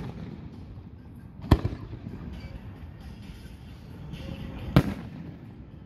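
Aerial fireworks shells going off: two sharp booms about three seconds apart.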